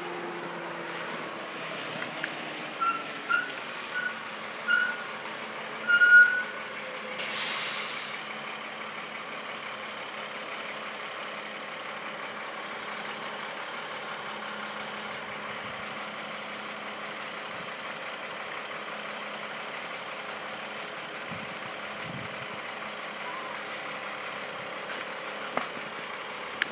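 A vehicle engine running steadily, with about a second of loud hissing air some seven seconds in and a few short high chirps just before it.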